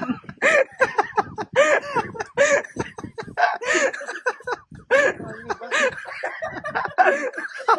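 People's voices talking and laughing.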